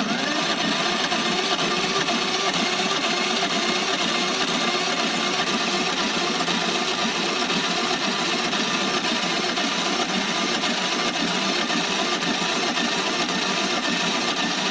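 Electric starter cranking the Kohler Courage XT6 engine of a Lawn-Boy mower steadily without it catching. It turns the engine over too slowly to start, a sign of a weak starter battery.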